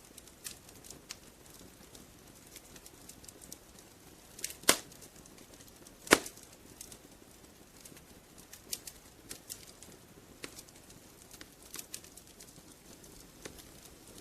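Wood fire crackling in a fireplace: irregular small snaps and pops over a faint hiss, with two louder pops a second and a half apart near the middle.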